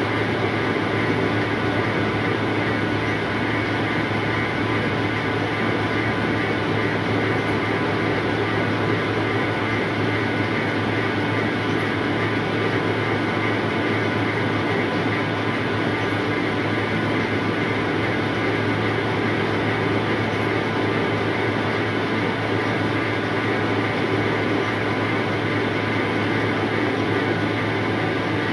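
Rice seed cleaning machine running, a loud, steady hum with several constant tones that never changes.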